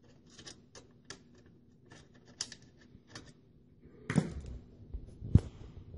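Small metallic clicks and taps of a screw being handled and lined up by hand in the sheet-metal chassis of a computer case. A busier clatter comes about four seconds in, and a single louder knock comes near the end.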